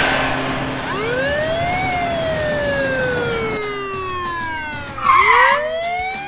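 Police siren wailing: one quick rise in pitch, then a long slow fall, then rising again near the end. A short loud burst comes about five seconds in.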